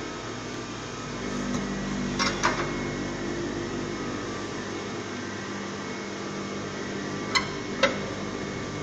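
Horizontal veneer slicer running with a steady mechanical hum. There are two sharp knocks about two seconds in and two more near the end.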